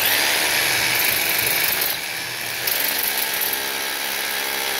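Cordless rotary hammer drill running under load, its bit boring into a sliding-door track to fix it to the wall. A dense, rattling whir that starts suddenly, eases slightly about two seconds in, then carries a steadier motor hum.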